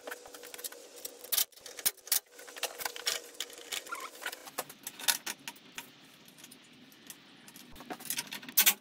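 Irregular clicks, knocks and scrapes of a plastic coolant expansion bottle being fitted into its metal bracket and of hand tools being handled, with a denser run of louder knocks near the end.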